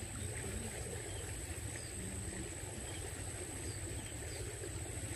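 Open-air rice-field ambience: wind rumbling on the microphone under a steady high-pitched whine, with a few faint short tones low in the background.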